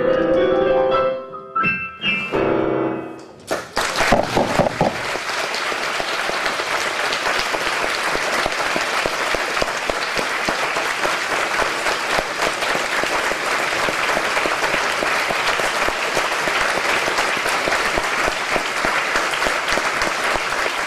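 The last notes and closing chords of a song played on piano, ending a few seconds in, followed by an audience applauding steadily.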